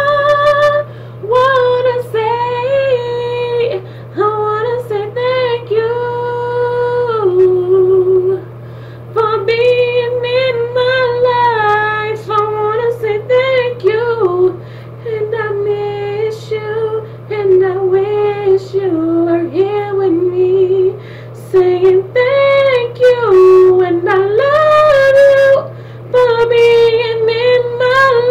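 A woman singing solo without accompaniment, a slow melody with held notes and runs broken by short breaths, over a steady low hum.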